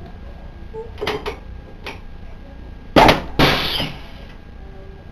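Chiropractic drop table: a few light clicks, then two loud sharp clacks about three seconds in as a drop section gives way under the doctor's thrust, the second trailing a short rattle. The drop lets the spine be adjusted with light pressure.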